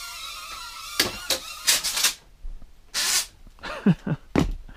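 Air Hogs Hyper Stunt micro drone's motors whining steadily, cutting out about a second in. Then a string of irregular knocks, clatters and rustles follows, with a heavier thump near the end.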